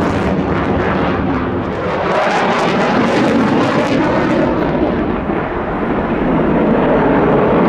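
F-16 fighter jet engine running at high power through a tight display turn, a loud crackling rumble with its afterburner lit. About halfway through, its high end drops away as the jet moves off.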